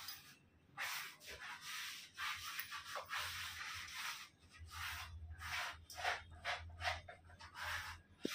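Hands rubbing and smoothing freshly pasted wallpaper flat against a wall, in a run of irregular rubbing strokes.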